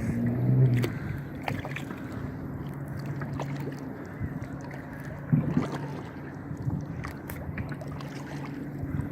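Boat motor running steadily at low speed, with a few knocks on top.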